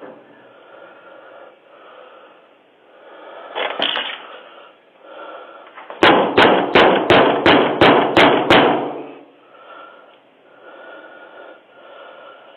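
A rapid series of about ten loud bangs on a door over two and a half seconds, as picked up by a doorbell camera's microphone, with a single lighter thump a few seconds before.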